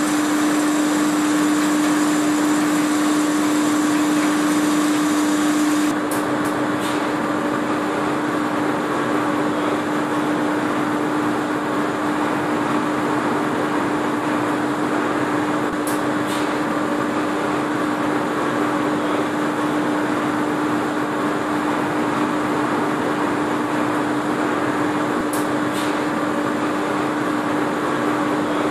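A 400-tonne-per-hour grain bucket elevator running steadily under test with its hood off, its head drum spinning: a continuous mechanical running noise with a steady hum, a little quieter from about six seconds in, with a few brief clicks.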